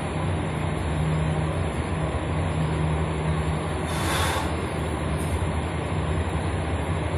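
Steady low rumbling hum, with a short hiss about four seconds in.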